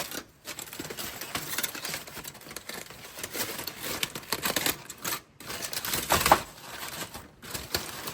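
Aluminium foil crinkling and crackling in irregular bursts as it is peeled off hot baked potatoes.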